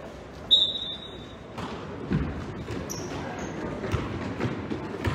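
Basketball bouncing on a gym floor, a handful of thuds about a second apart in the second half, in a large echoing hall. About half a second in, a loud, short, high-pitched squeak.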